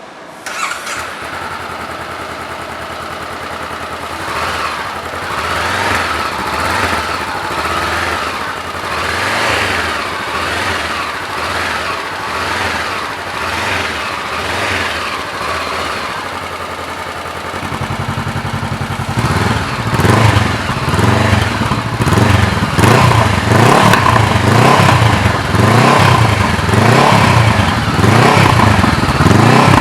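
Honda CBR 500R parallel-twin engine blipped repeatedly through a Roncar Coyote TRS 2Way+ aftermarket exhaust. A bit over halfway through, the note turns abruptly deeper and louder as the exhaust is switched to its louder setting, and the revs after that are louder and quicker.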